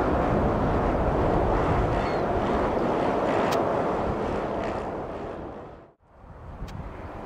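Boeing 787 airliner landing, its jet engines making a steady noise through touchdown and rollout. The sound fades out about six seconds in.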